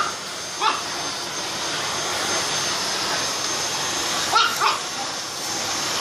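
Vacuum cleaner running steadily with a thin high whine, while a Chihuahua barks four times: once at the start, once just under a second in, then twice in quick succession a little past four seconds.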